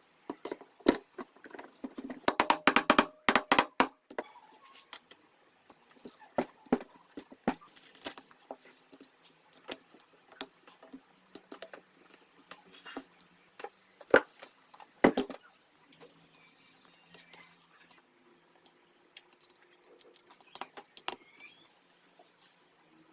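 Small metal parts and hand tools clinking and knocking during engine work, with a quick run of rattling clicks about two seconds in and a few single sharper knocks later.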